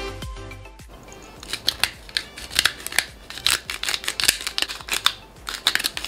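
Hand pepper grinder being twisted over raw chicken strips, a run of sharp, irregular crunching clicks as peppercorns are cracked, starting about a second and a half in. Background music plays briefly at the start.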